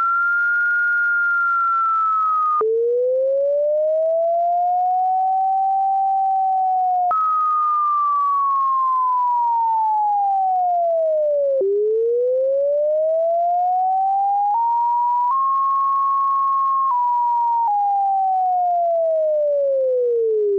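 Computer-generated sine tone whose pitch follows a plotted function's height, like a slow siren: it sinks slightly from a high pitch, drops suddenly, rises and falls in smooth arcs with sudden jumps twice more, then near the end climbs in small stair-steps and glides back down.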